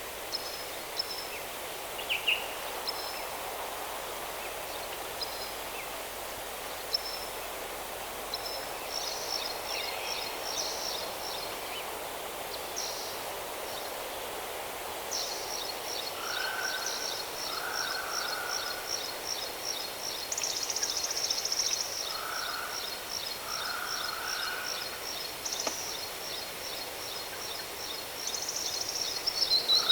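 Steady rush of falling water with birds calling over it: scattered short high chirps in the first half, then a fast, continuous trill of repeated high notes from about halfway on, with a few lower buzzy calls.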